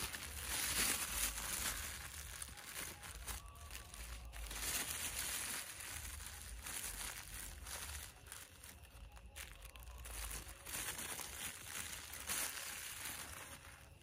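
Thin plastic bag crinkling as it is squeezed and shaken, its contents tipped into a pot of water.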